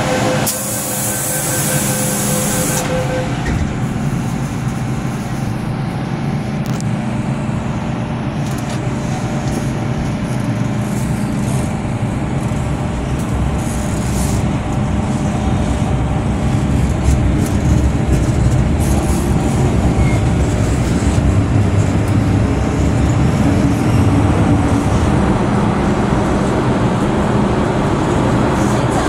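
Hong Kong MTR M-Train electric metro car heard from inside: a burst of air hiss lasting about two seconds near the start, then the train pulls away and runs on. Its running noise and low rumble grow louder from about halfway through as it picks up speed into the tunnel.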